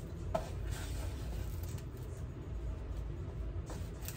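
Soft handling sounds of fresh turkey sausage being squeezed from its plastic package into a stainless steel mixing bowl: faint rustling, with a small click about a third of a second in. A steady low hum runs underneath.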